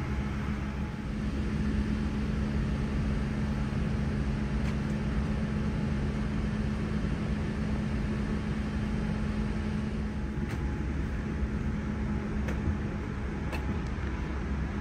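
Airliner cabin air-conditioning running: a steady rush of air with a low hum, the hum dropping out about ten seconds in. A few faint clicks.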